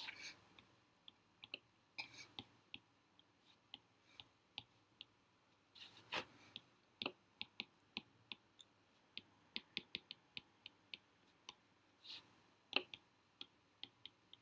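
Faint, irregular taps and short scrapes of a stylus writing by hand on a tablet's screen, coming in quick runs of clicks.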